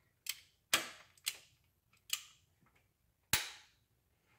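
About five sharp, irregularly spaced snapping clicks from a wrench and head bolt, as the cylinder head bolts of a 1.6 N16 engine are turned through a 90-degree angle-torque stage.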